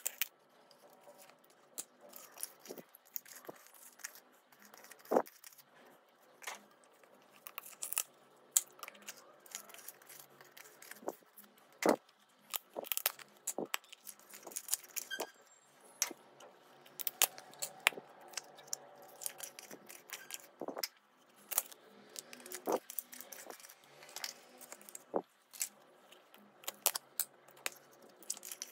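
Small plastic slime tubs being handled and their snap-on lids pried open, making irregular sharp clicks and crackles of thin plastic, with fingers working the slime inside.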